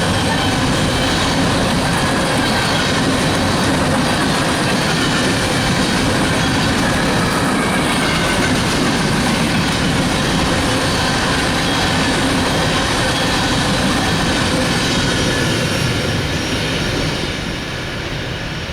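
Freight cars of a coal train rolling past steadily, a dense rumble of steel wheels on rail with a faint high squeal; the sound eases off near the end.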